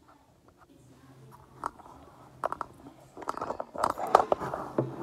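Handling noise from a tablet and the recording camera being picked up and moved: scattered clicks and taps, growing into a dense run of crackling and knocking from about three seconds in.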